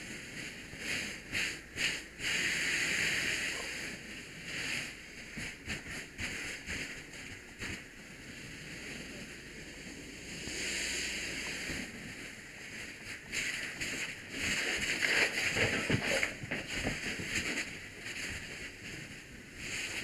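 Fire hose nozzle spraying water into a burning room, the stream splashing on walls and contents as the fire is knocked down; the hiss swells and drops in irregular stretches as the nozzle is worked.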